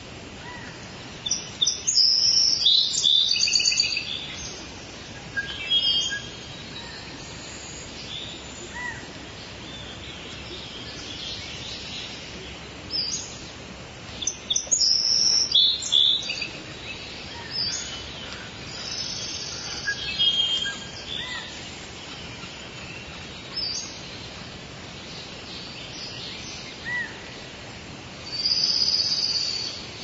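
Rainforest ambience: a steady, even hiss of background noise with repeated bursts of high-pitched bird calls, loudest about two seconds in, around the middle and near the end, with scattered fainter chirps in between.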